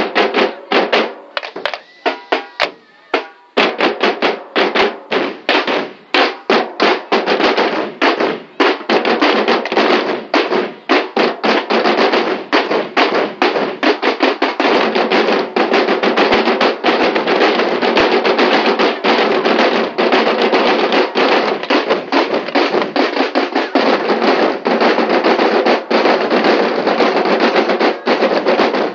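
A drumline of marching snare drums played with sticks. It starts with scattered strokes, then a few seconds in breaks into a fast, dense beat that carries on like a continuous roll.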